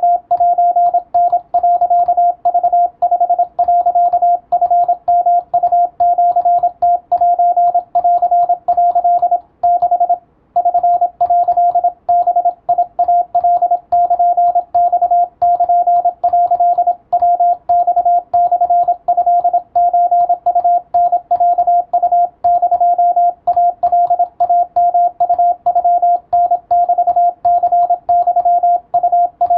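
Morse code (CW) tone of about 700 Hz, keyed continuously in quick dots and dashes, Japanese wabun telegraphy at practice speed, with a brief pause about ten seconds in.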